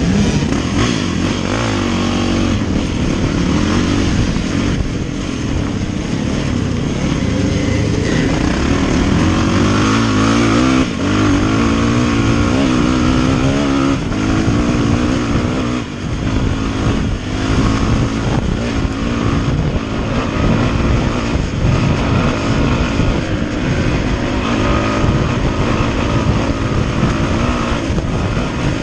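Yamaha dirt bike engine running hard under load, its revs rising and falling continually as the rider works the throttle.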